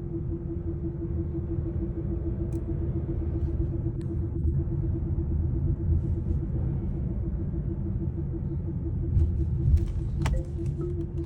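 Humming from a vehicle's prop-shaft centre bearing support: a steady, rapidly pulsing hum over low driveline and road rumble, the sign of a worn centre bearing support. A few sharp clicks come about ten seconds in.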